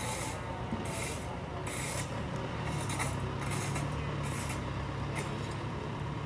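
Irregular rasping scrapes, about one a second, of long-handled hand tools dragging through loose road gravel, over the steady low hum of a slowly moving dump truck's engine.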